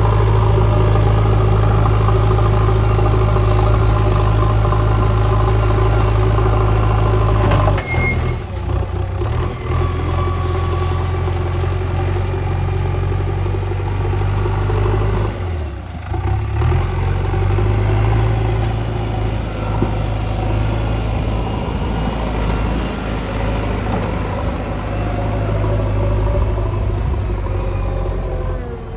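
JCB 3DX backhoe loader's diesel engine running steadily as it works the soil, its note dropping and shifting about eight seconds in and dipping again about halfway through.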